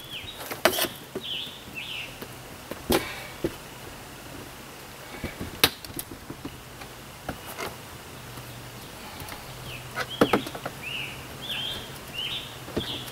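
Occasional sharp knocks and clicks as a camper window frame is worked loose by hand. A bird chirps in short repeated notes at the start and again through the last few seconds.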